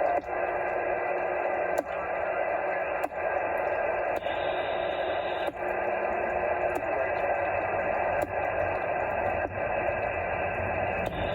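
CB radio receiver on channel 38 lower sideband, hissing with band noise from the skip between transmissions. Short clicks or dropouts come about every second and a half.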